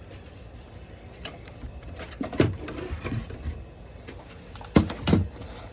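A few knocks and clatters of equipment being handled and set down, the loudest about two and a half seconds in and two near the end.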